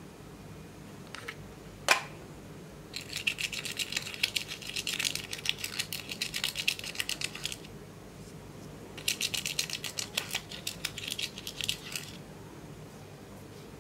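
Pressed glitter eyeshadow being scraped out of its small pot with a thin tool: two spells of quick, dry scratching strokes, the first about four seconds long and the second about three. A single sharp click comes about two seconds in, before the scraping.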